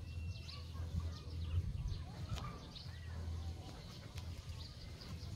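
Birds chirping, many short high calls scattered through, over a steady low rumble.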